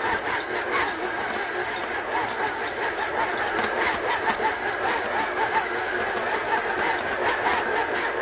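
Electric stand mixer running steadily, its flat beater working thick chocolate chip cookie dough in a stainless steel bowl, with many small knocks from the dough and beater.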